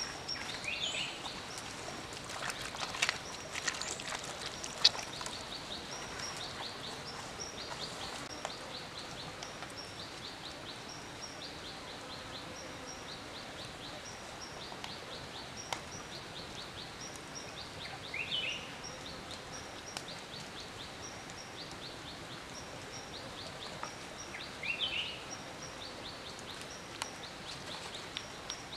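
Forest ambience over a steady hiss: short high bird chirps repeat throughout, with a louder, lower call twice in the second half. A few sharp clicks come in the first few seconds.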